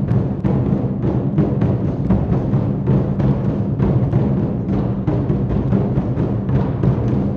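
A row of large Chinese barrel drums of the Malaysian 24 Festive Drums tradition, struck with sticks together by a drum troupe in a fast, unbroken rhythm of deep strokes.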